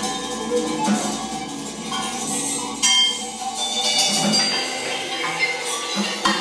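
Free-improvised percussion on a drum kit: small metallic clinks, scrapes and ringing tones from cymbals and metal objects, with one loud strike about three seconds in.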